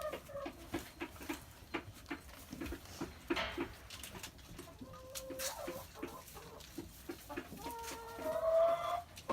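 Domestic hens clucking in a steady run of short clucks, with longer drawn-out calls about five seconds in and again near the end.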